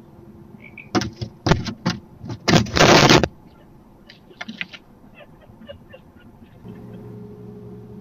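A barn owl leaving its wooden nest box: a quick run of knocks and scrabbling from its talons and wings on the wood, then a loud scrape lasting nearly a second, followed by a few faint ticks.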